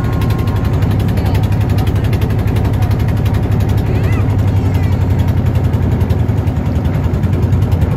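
Motorboat engine running steadily at a constant speed, with a fast, even pulse.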